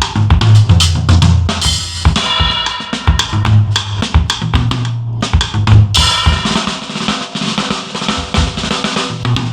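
Drum kit played in a busy groove: bass drum and snare strikes throughout, with cymbal crashes about two seconds in and again about six seconds in.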